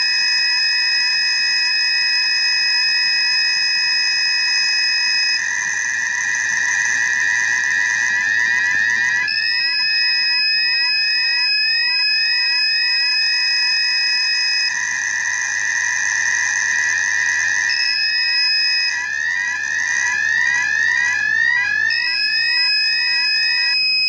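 Electronic fire-alarm siren of a homemade Arduino smoke detector and its phone app, set off by smoke reaching the gas sensor. It is a loud steady high tone under fast, repeating sweeping pulses, and the pulse pattern shifts several times.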